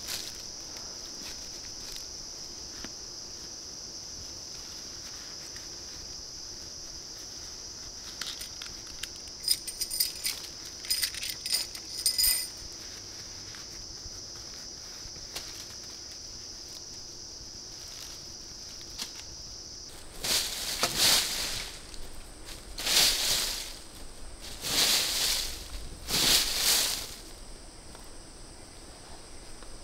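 Forest insects drone steadily on a single high note, with a few light clinks around the middle. About two-thirds of the way through the drone stops and a higher insect tone takes over, and four loud rustles in dry leaf litter come about two seconds apart.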